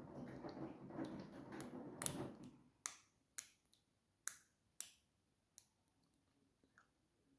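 Samsung washing machine running, a steady noise peppered with small clicks, which stops about two and a half seconds in. Half a dozen sharp, separate clicks follow at irregular intervals.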